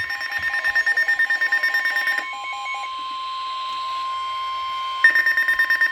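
NOAA Weather Radio's steady 1050 Hz warning alert tone sounding ahead of a severe thunderstorm warning, with weather radio receivers' alarms beeping rapidly over it. The beeping stops about two seconds in and starts again near the end.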